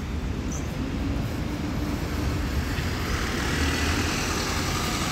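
A double-decker bus's engine running as the bus pulls past close by. A steady low rumble and hum grows into a fuller, hissier rush of engine and tyre noise in the second half, as the bus draws alongside.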